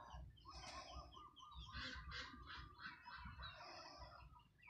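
A yard flock of chickens and ducks calling: a run of short, overlapping clucks, cheeps and honk-like calls.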